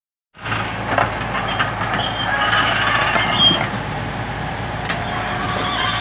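Komatsu PC20 mini excavator's diesel engine running steadily under digging load, with high hydraulic whines and a few clanks of the steel bucket against rubble.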